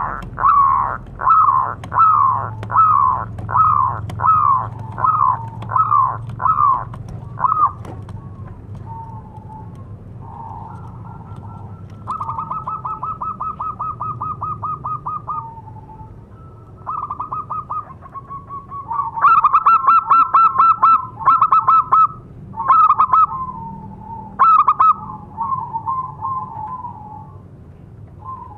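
Zebra dove (perkutut) calling to other zebra doves. It starts with a series of about ten short, falling coos, then after a pause gives several rapid rolling trills, the loudest about two-thirds of the way in, and ends with softer notes.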